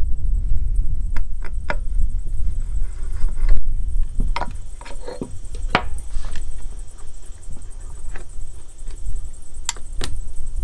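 Scattered metal clicks and clinks as hand tools and small chainsaw parts are picked up and handled, over a steady low rumble of wind on the microphone.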